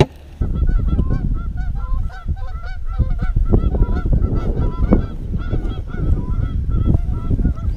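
Geese honking: many short calls overlapping and repeating, with wind rumble on the microphone underneath.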